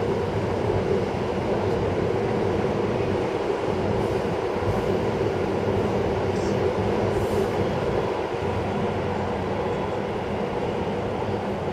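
Yamanote Line electric commuter trains running past on the tracks below, a steady, continuous noise of wheels on rail and running gear.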